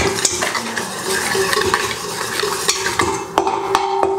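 Wire whisk beating eggs in a stainless steel bowl, its wires scraping and clinking rapidly against the steel as powdered sugar is mixed in.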